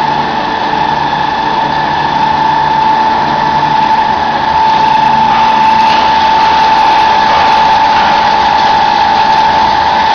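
Chicken feed pellet press machine running steadily, a loud continuous machine noise with a strong steady whine.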